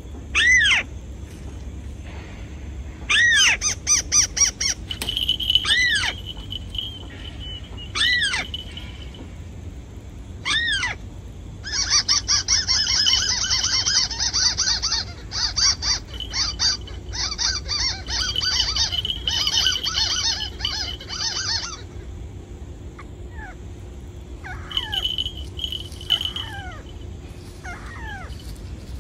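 Bird calls played back as a lure: a few loud, sharp arched chirps, then a long fast trill lasting about ten seconds, then softer falling whistles near the end.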